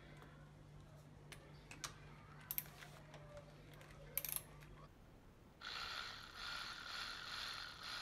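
A few light clicks of a tool being handled, then about five and a half seconds in a cordless electric driver fitted with a socket starts running, a steady motor whir that carries on to the end.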